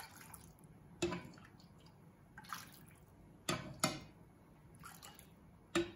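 Poultry stock poured from a ladle into a saucepan of sweated onions, a faint liquid sound broken by about five sharp knocks of utensils against the pan.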